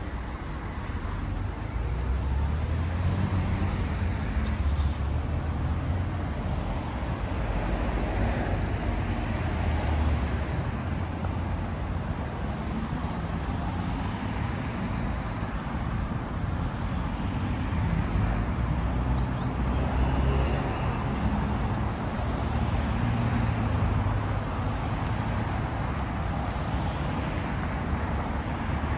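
Road traffic: cars passing one after another, a steady hiss of tyres with a low engine rumble that swells and fades as each goes by.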